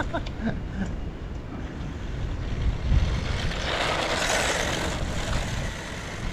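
Wind buffeting the microphone in a steady low rumble, with a stretch of hissing noise about three and a half to five and a half seconds in.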